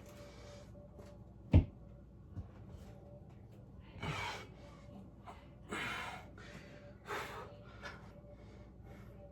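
A single sharp thump about a second and a half in, then three heavy breaths a second or so apart, a person out of breath from pistol squats.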